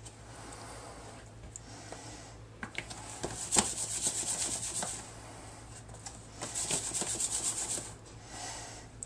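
Pieces of snapping turtle meat being dredged in seasoned flour in a plastic tub: the meat rubbing and scraping through the flour, in two spells of rapid, rhythmic strokes, with a few light clicks in between.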